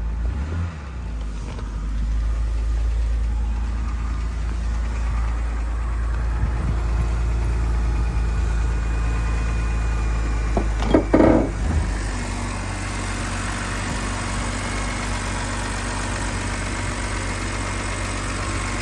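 BMW N52 inline-six idling just after a cold start, with the knock-and-crackle noise from under the hood that shows up when the engine is cold. About eleven seconds in there is one brief louder burst of noise.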